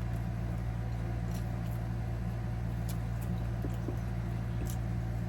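Steady low mechanical hum with a few faint, brief clicks.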